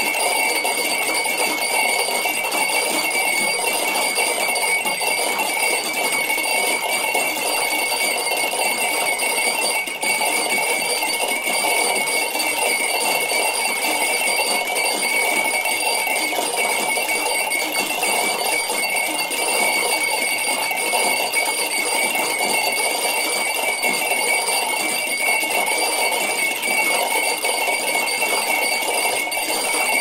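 A dense, unbroken mass of tiny clinks and tinkles from a great many glass drinking-bird (dipping-bird) toys bobbing at once, with a few steady high ringing pitches running through it.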